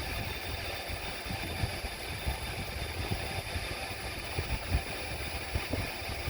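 Steady mechanical hum and low rumble of running machinery, with a few faint irregular knocks.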